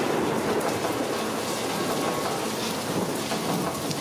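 Heavy rain pouring steadily, with a rumble of thunder that is strongest at the start and fades over the next few seconds.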